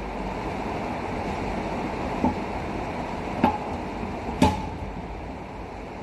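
Three short sharp plastic knocks, about a second apart and the last the loudest, as the machine's plastic top cover is pressed down and set into place, over a steady background hiss.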